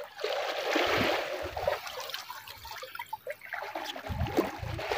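Small sea waves washing and trickling among shoreline rocks, swelling about a second in, with a few low thumps.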